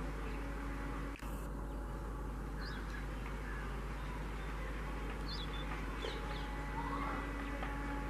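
Faint steady drone of a distant approaching diesel locomotive, with birds chirping now and then over it.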